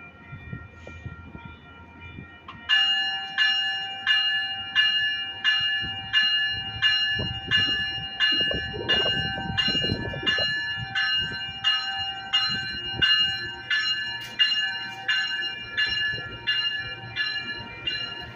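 A railway bell starts ringing about three seconds in, with evenly repeated strikes about one and a half a second, each ringing out before the next, over the low rumble of the train.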